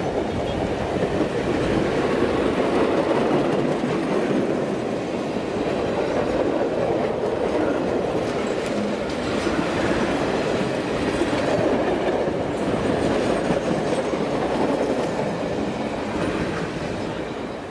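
Steel wheels of passenger coaches rolling past close by: a steady rumble with clickety-clack over the rail joints. It fades as the last car goes by near the end.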